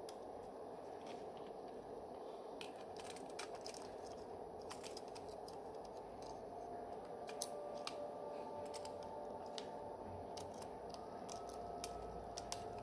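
Faint scattered small clicks and taps of tools and parts being handled while an iPhone 3G is worked on, more frequent in the second half, over a steady background noise.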